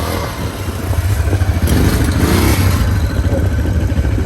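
ATV (quad bike) engine running, getting louder about a second in.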